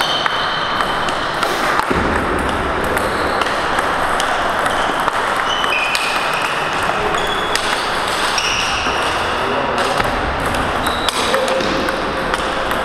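Table tennis rallies: celluloid balls clicking off bats and tables, many quick hits from several tables at once, over a steady hall din, with a few short high squeaks of players' shoes on the sports floor.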